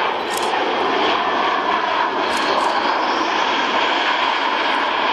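Airbus A320 landing rollout: its twin jet engines spool up into reverse thrust, a loud steady rush that grows brighter and rises in pitch over the second half.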